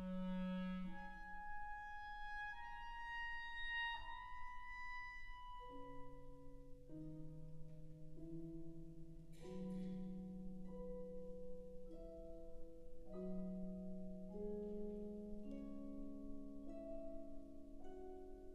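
Solo clarinet with wind band accompaniment: the clarinet plays a line of held notes climbing in pitch, then about six seconds in the band enters softly with sustained chords.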